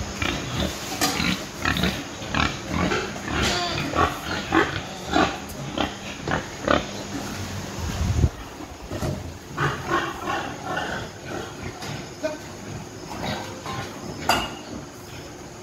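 Pigs calling in a quick string of short sounds, busiest over the first eight seconds and sparser after, with a heavy thump about eight seconds in.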